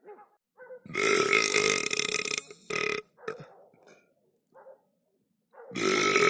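A person belching loudly: one long burp held on a steady pitch for about a second and a half, then a short burp, and another long burp starting near the end.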